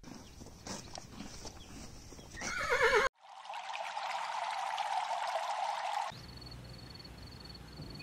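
Horse whinnying once, a short call that falls in pitch, about two and a half seconds in. After a cut a steady chorus of frogs or toads calling follows for about three seconds, then a quieter stretch with a faint, high, evenly pulsed call.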